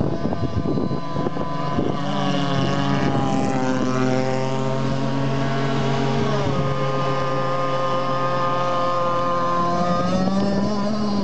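Two-stroke Zenoah 26cc petrol engine of a radio-controlled racing boat running hard at speed, a steady high engine note. Its pitch dips about six seconds in, holds steady, and rises again near the end.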